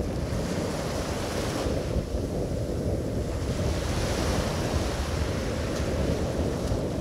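Wind buffeting the microphone in a steady low rumble, over the hiss of small surf washing up the beach, which swells and fades.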